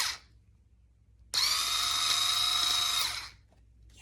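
A 4V cordless screwdriver's motor test-run on its battery, which still holds a charge: a short run stops right at the start, then about a second in it spins up and runs steadily with a high whine for about two seconds before stopping.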